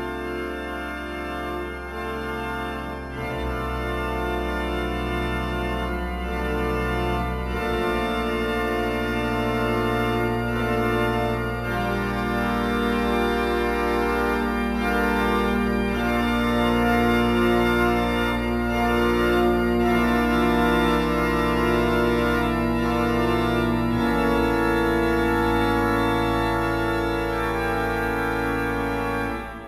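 Organ music: slow, sustained chords over held deep bass notes, the harmony changing every few seconds, fading out at the very end.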